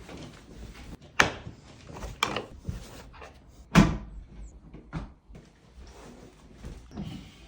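Parts of an ottoman bed frame knocking and banging as it is taken apart: four sharp knocks roughly a second apart, the loudest a little past the middle.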